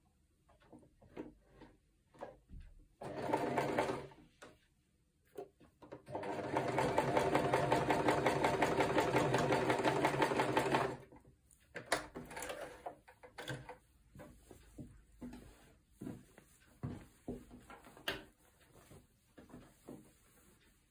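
Janome sewing machine stitching: a short burst about three seconds in, then a steady run of about five seconds, followed by scattered clicks and fabric handling as the garment is taken out of the machine.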